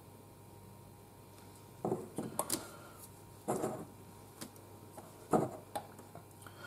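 A handful of light knocks and clicks as a painted figurine bust on its square base is handled and set down on a cutting mat, starting about two seconds in after a quiet start.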